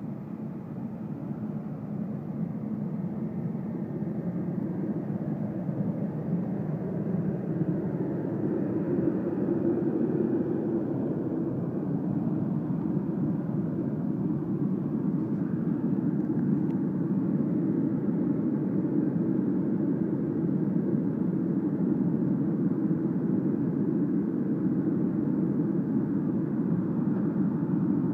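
Portable forced-air heaters running, a steady rushing noise of fan and burner that gets louder over the first several seconds and then holds steady.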